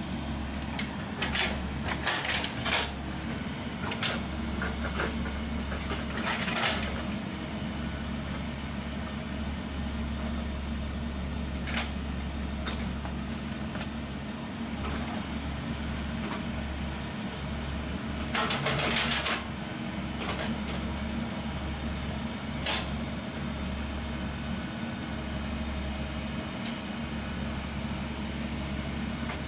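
Excavator's diesel engine running steadily, with scattered metallic clanks and knocks and a longer rattle about two-thirds of the way through.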